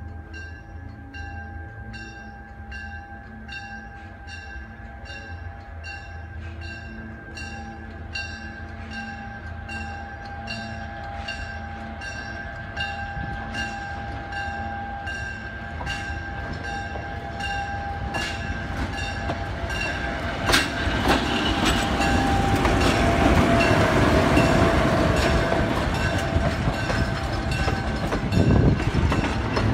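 GE U25B diesel locomotive approaching and passing at low speed, its engine rumble growing steadily louder, with a bell ringing about twice a second during the approach. After it passes, about two-thirds of the way in, the coaches roll by with wheel clicks and clatter on the rail joints.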